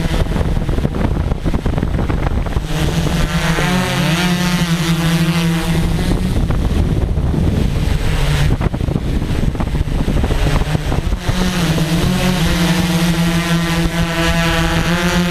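Multirotor drone's electric motors and propellers humming steadily, with a brief dip and wobble in pitch about four seconds in and again near twelve seconds as the motor speeds change. Wind rushes across the microphone throughout.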